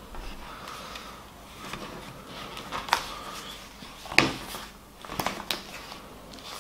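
Hands handling a book-style CD digipak with a plastic disc tray, closing it and turning it over: soft rustling with a few sharp clicks and taps, the loudest about four seconds in.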